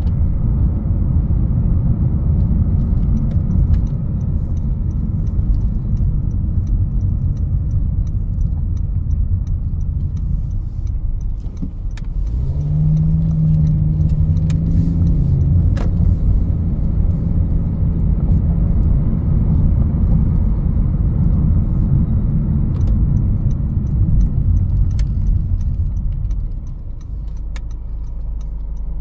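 Road and engine noise inside the cabin of a 2021 Honda HR-V Sport AWD on the move, a dense low rumble. About halfway through, a low engine drone comes up for a few seconds as it pulls, and the noise eases a little near the end.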